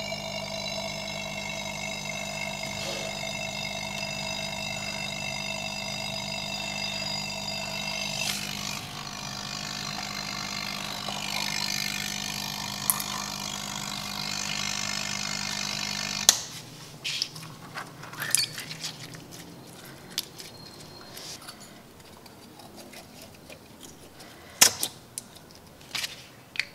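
Small battery-powered air pump running with a steady hum, pushing air through a plastic tube to blow slime up into a bubble. It cuts off suddenly about two-thirds of the way through, leaving scattered clicks and soft squishes of slime being handled.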